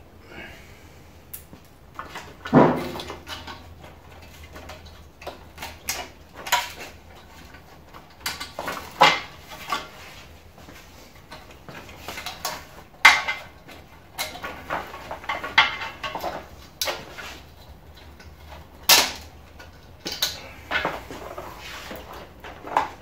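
Irregular clicks, knocks and rattles from a CRT television being stripped by hand, as wires and cables are tugged off the picture tube and its metal and plastic parts knock together. A few louder knocks stand out among the lighter clatter.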